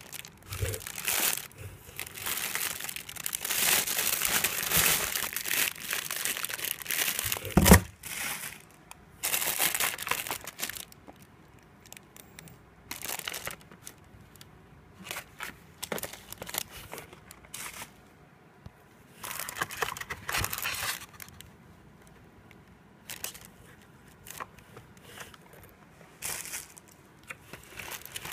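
Plastic produce bags, trays and bubble wrap crinkling and rustling as they are handled. The rustling is dense for the first eight seconds, with a sharp knock at about eight seconds, the loudest sound. After that it comes in shorter bursts with quiet gaps.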